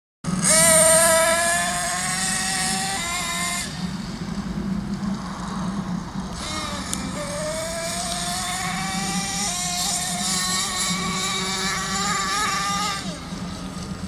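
Thunder Tiger MTA-4 monster truck's .28-size nitro engine running at high revs, its high whine climbing in pitch during two long runs. It eases off around four seconds in, then picks up again about seven seconds in.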